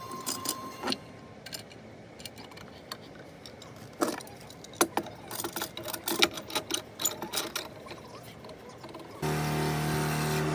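Metal C-clamps being fitted and screwed down onto a wooden batten: scattered clanks and clicks of metal on wood. About nine seconds in, background music starts and becomes the loudest sound.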